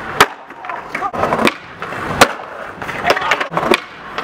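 Skateboard wheels rolling on stone paving, broken by a series of sharp clacks as the board strikes and pops off the ground.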